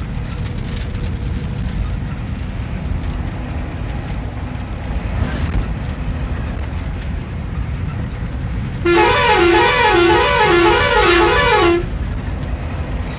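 A moving vehicle rumbles steadily from inside its cab. About nine seconds in, a loud warbling musical horn sounds for about three seconds, its pitch swinging up and down about twice a second.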